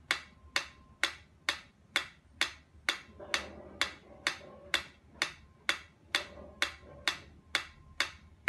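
Pyramid-shaped mechanical metronome ticking steadily, a little over two ticks a second.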